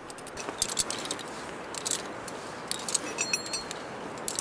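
Climbing carabiners and quickdraws on a harness gear rack clinking and jingling in short scattered rattles as a seconding climber moves up and cleans the pitch, with a brief ringing clink of metal a little after three seconds, over a steady hiss.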